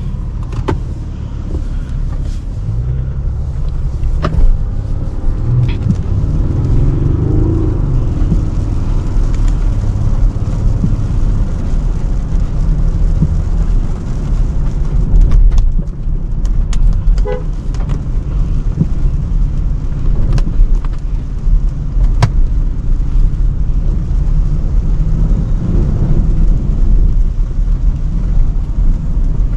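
Range Rover Sport driving through city traffic in the rain: a steady low rumble of engine and road noise, with car horns tooting now and then and a few sharp clicks.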